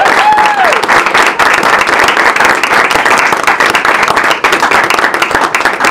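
Audience applauding at the end of a marimba trio performance, with a voice whooping briefly at the start.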